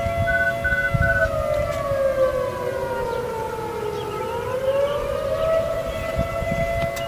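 Federal 2001-130 tornado siren sounding a steady tone whose pitch sags about a second in, slides down for a few seconds and then climbs back to full pitch, the faltering of a failing siren. Three short high beeps sound near the start, over low wind rumble.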